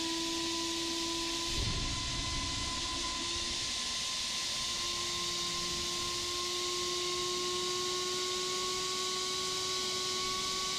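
Brushless drone motor spinning a propeller with a 3D-printed PLA guard ring fixed to its blade tips, running on a test stand. It gives a steady whine over an airy hiss, its pitch creeping slowly upward as the throttle is raised. A brief low rumble comes about two seconds in.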